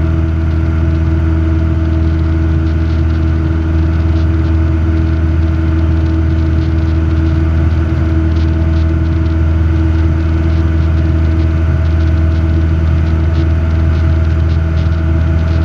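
Robin DR400 light aircraft's piston engine and propeller running in a steady, unchanging drone in the climb, heard from inside the cabin.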